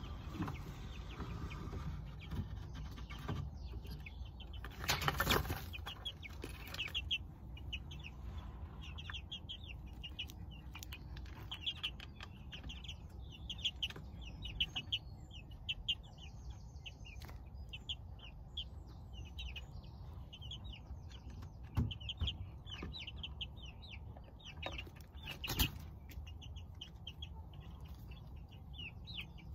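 Young Norfolk Grey chickens cheeping: a steady run of short high calls, several a second, starting about seven seconds in. Two brief loud rustling noises stand out, one about five seconds in and one near the end.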